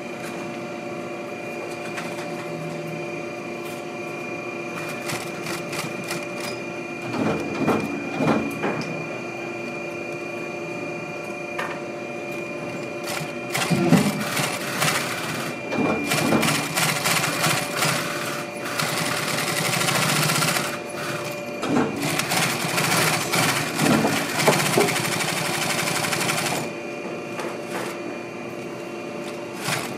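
Industrial post-bed sewing machine stitching a leather boot upper in runs of rapid needle strokes: a short run about seven seconds in, then a long run of about twelve seconds through the middle, with a steady hum in between.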